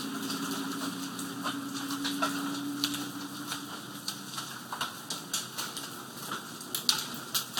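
Large hailstones, some golf-ball sized, striking pavement, grass and siding: scattered sharp clicks and cracks over a light patter, coming more often in the second half. A passing car's engine hum fades out about three seconds in.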